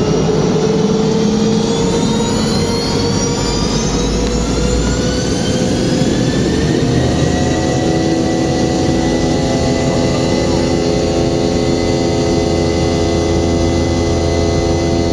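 Boeing 717's Rolls-Royce BR715 turbofan engines spooling up for takeoff: a rising whine over the first few seconds that levels off into a steady, loud drone of several tones over a low rumble.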